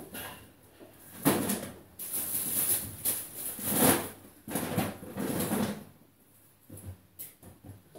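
Groceries being unpacked by hand from plastic delivery crates: packaging rustling and items and crates knocking, in several bursts of a second or so with short pauses between.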